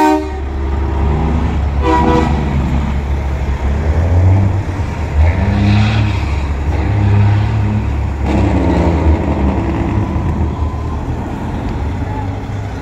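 Semi-truck diesel engines rumbling as a convoy passes, with a short truck horn blast about two seconds in.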